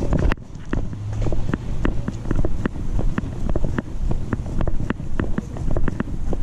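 Walking footsteps on a wet sidewalk, with a chest-strap-mounted camera jolting and knocking at each step: a run of short sharp ticks, several a second, over a low rumble of wind and rubbing on the microphone.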